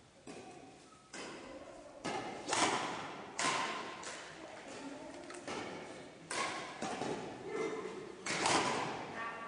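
Badminton racket strings striking feathered shuttlecocks in full underhand hits, a series of sharp smacks at uneven intervals, with the sports hall echoing after each.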